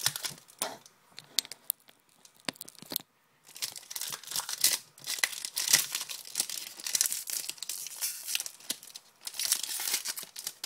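Hockey card pack wrappers torn and crinkled by hand while the cards are shuffled and flicked. A few sharp snaps come in the first three seconds, then near-continuous crinkling from about three and a half seconds in.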